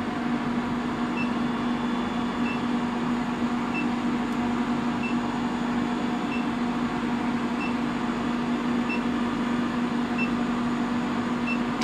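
Forge Force induction heater running under load, heating a 16 mm steel bar red-hot in its flexible coil: a steady hum with a short high beep repeating about every 1.3 seconds.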